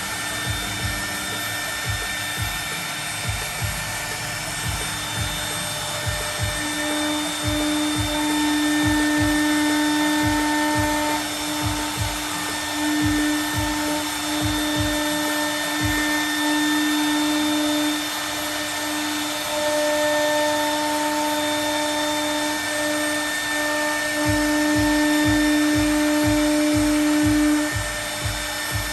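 CNC router spindle milling aluminium composite panel: a steady high whine that grows louder over several long stretches of a few seconds each as the bit works through the panel.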